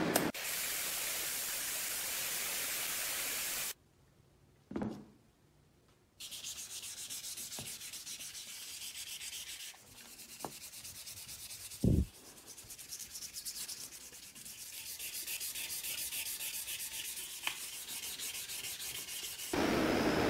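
Fine P1000 sandpaper rubbed by hand over the restored parking meter parts, in repeated sanding strokes, with a sharp knock partway through. A steady hiss comes before the sanding, and a loud steady rushing noise starts near the end.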